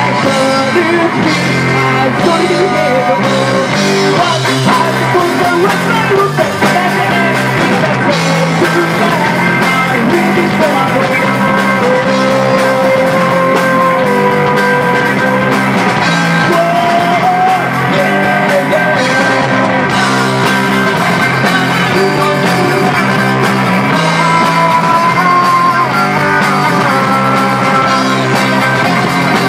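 Live rock band playing: electric guitar, bass guitar and drum kit, with a man singing lead into the microphone.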